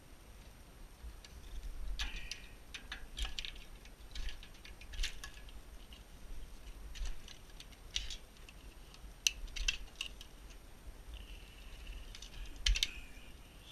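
Irregular light clicks, taps and scrapes of wire connectors being pulled off the back of a pellet stove's main control board, with a brief squeak near the end.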